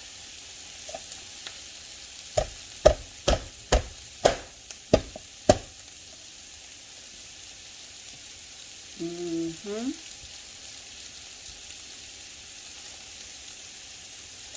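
Chicken sizzling in a hot pan, a steady hiss, with a quick run of about eight sharp knocks of a utensil against the pan a few seconds in. A short hum from the cook comes about two-thirds of the way through.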